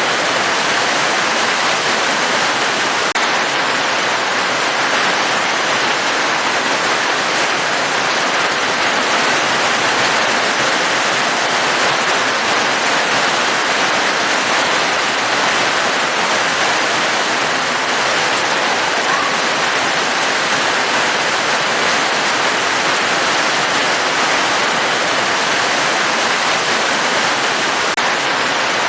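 Steady heavy rain, an even rushing hiss with no single drops standing out.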